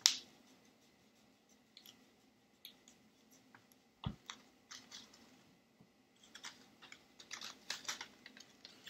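Paper crackling and rustling as a glued paper fin is pressed down by hand, with one dull thump about four seconds in and a flurry of rustling near the end as the paper fish is picked up.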